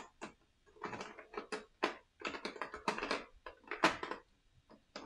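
Hard plastic game miniatures clicking and clattering as they are handled, in irregular quick bursts of small clicks and rattles.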